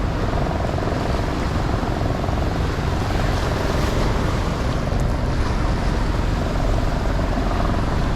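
Steady wind buffeting the microphone over river water, with a faint motor drone that comes and goes.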